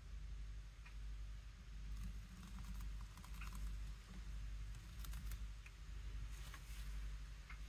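Faint scattered taps and light scratches of a small hand tool working on a painted paper-strip surface, over a steady low hum.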